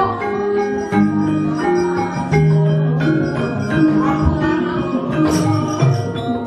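Javanese gamelan playing to accompany a wayang kulit puppet fight: bronze metallophones and gongs ring in sustained pitched notes, broken by frequent sharp clacks.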